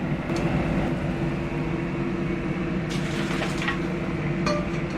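A steady mechanical hum runs throughout, with a few light clinks and clatters of cookware: one just after the start, a cluster about three seconds in, and more near the end.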